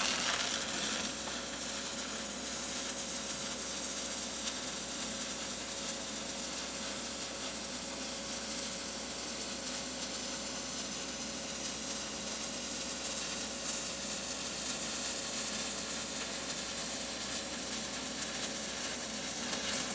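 Stick welding arc from a 7018 electrode at about 110 amps: a steady, even crackle as the rod burns and is dragged along the bead. It starts sharply as the arc is struck and stops sharply when the arc is broken at the end.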